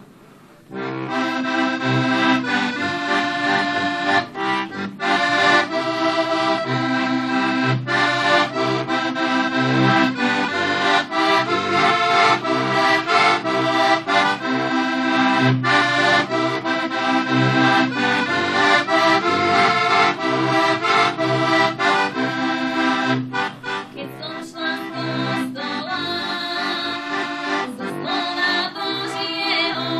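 Heligonka, a Slovak diatonic button accordion, playing an instrumental folk tune with sustained chords over a regular pulse of bass notes; it starts about a second in and plays a little more softly near the end.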